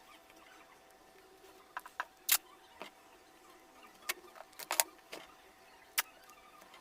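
Scattered sharp clicks and taps, about eight of them at uneven intervals, from hands handling and fastening parts of an electric-bike battery pack.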